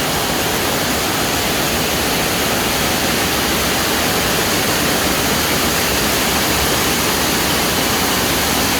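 Loud, steady rush of water, an even hiss with no breaks.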